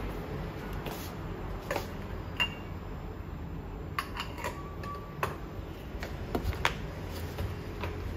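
Metal clinks and knocks of a stovetop moka pot being handled and taken apart on a wooden board, a dozen or so sharp taps, a few of them ringing briefly. A steady low background rumble runs underneath.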